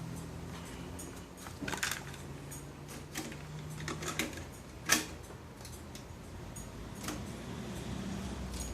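Scattered mechanical clicks and clunks from hi-fi equipment controls being operated, over a steady low hum; the loudest clunk comes about five seconds in.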